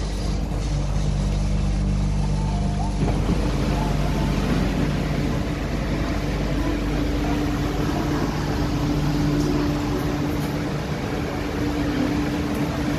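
Steady hum of an MTR Kwun Tong Line Q-Train standing at a platform, with steady low tones from the train's onboard equipment; a broader hiss comes in about three seconds in.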